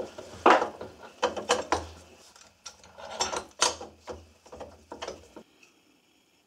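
Steel bar clamps being set and tightened by hand on wooden pressure blocks during a glue-up, with irregular metallic clicks and scrapes from the sliding jaws and turning spindles. It cuts off suddenly a little after five seconds in.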